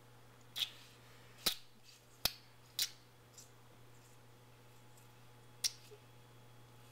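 A person gulping a drink down fast from a punctured can while shotgunning it, heard as sharp clicking swallows: four in the first three seconds and one more a few seconds later.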